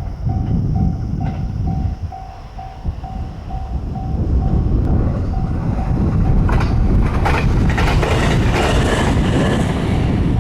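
Japanese level-crossing warning bell ringing about twice a second while a train passes over the crossing. The train's rumble builds from about four seconds in, and its wheels clack over the rail joints from about six seconds in.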